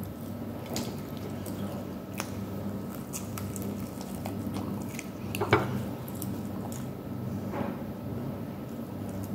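Close-up eating sounds of grilled chicken wings being bitten and chewed: scattered wet clicks and lip smacks, with one louder smack about five and a half seconds in.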